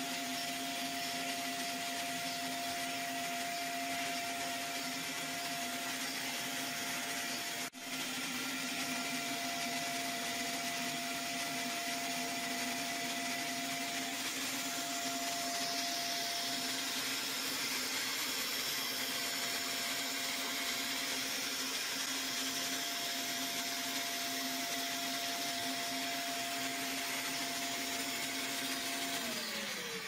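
Vinyl record-cutting lathe running: a steady motor whir and hiss over a constant whine and a lower hum. Near the end the whine and hum glide down together as the machine winds down.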